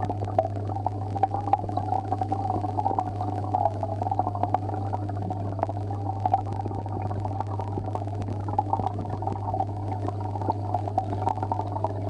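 Aquarium pump humming steadily, with air bubbling through the tank water in frequent small pops.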